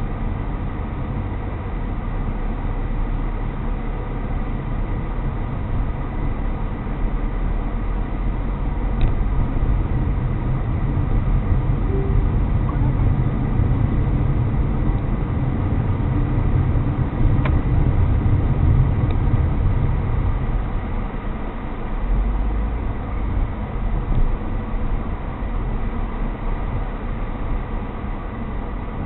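A car being driven, heard from inside: a steady low engine and road rumble that grows louder for a stretch in the middle, with a faint steady high hum underneath.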